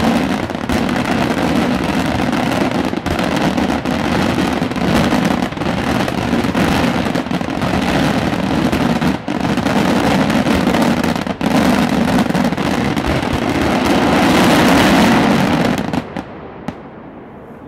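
Daytime fireworks barrage: aerial shells bursting overhead in a dense, continuous run of bangs. It grows loudest shortly before it stops abruptly near the end.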